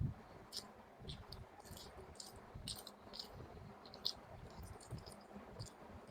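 Close-miked eating of chicken in gravy: irregular wet mouth clicks and smacks while chewing, about two or three a second.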